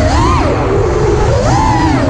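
FPV quadcopter's brushless motors whining, the pitch swooping sharply up and down with the throttle: a quick rise just after the start, a drop, then another rise about a second and a half in. A rough low rumble runs underneath.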